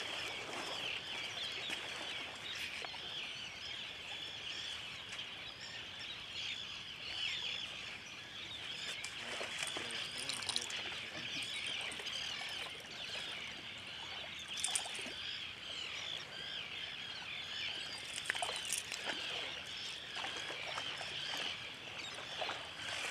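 Many birds calling over one another in a dense, steady chatter of short high chirps, with a few sharp clicks now and then.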